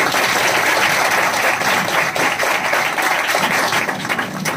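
A classroom full of schoolchildren applauding: many hands clapping at once, dense and steady, thinning out near the end.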